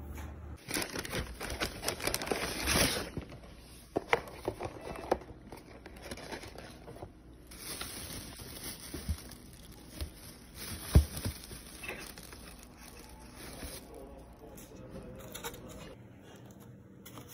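Plastic and paper food packaging crinkling and rustling in bursts, with scattered sharp taps and clicks.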